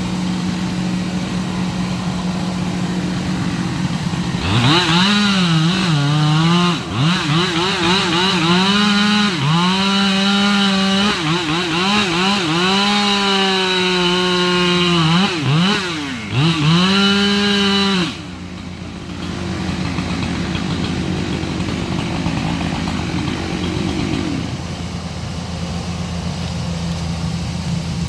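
Two-stroke chainsaw running at high revs and cutting wood, its engine note dipping under load and rising again several times for about thirteen seconds. It starts a few seconds in over a steady engine hum and stops abruptly, after which a lower, steadier engine noise continues.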